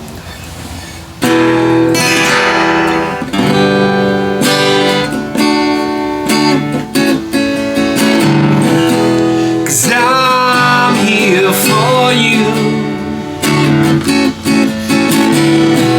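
Strummed acoustic guitar music, coming in strongly about a second in, with a voice singing along.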